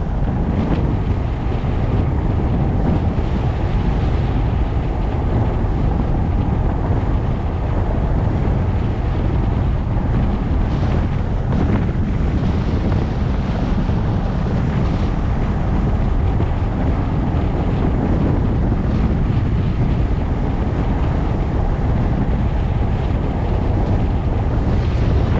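Wind rushing over the microphone of a GoPro action camera on a moving car, together with the car's road rumble: a steady, loud, low rush that does not change.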